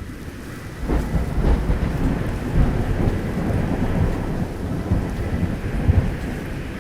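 Thunderstorm sound effect: heavy rain hissing steadily while deep thunder rumbles, swelling about a second in and peaking twice, the second time near the end.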